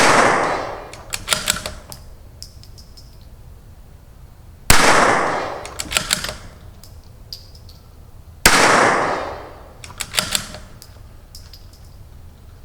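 CZ 457 .22 LR bolt-action rifle fitted with an ATS barrel tuner firing three shots about four seconds apart, each crack trailing off in a ringing echo for about a second. A quick cluster of metallic clicks follows each shot as the bolt is worked for the next round.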